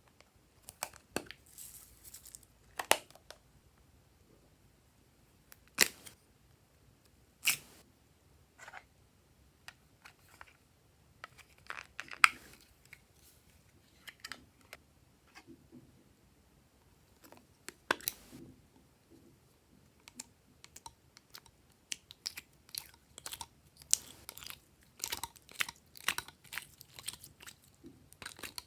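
Glossy slime being squished and stretched by hand: irregular sticky pops and crackles, scattered at first and coming thick and fast in the last few seconds.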